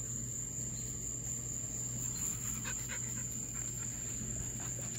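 Crickets trilling in one steady high tone, with a Doberman close by panting faintly.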